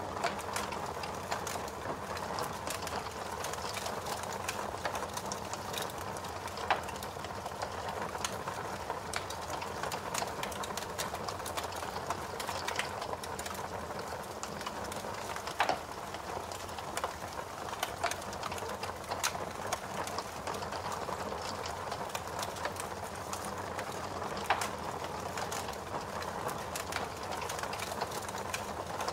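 Fire crackling: a steady hiss with frequent small crackles and pops, and a few louder pops scattered through.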